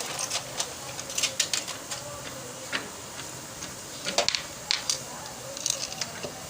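Irregular light clicks and taps in small clusters, over a faint steady hum.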